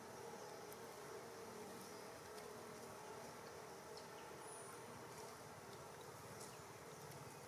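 Faint steady buzzing of insects, with a few faint clicks.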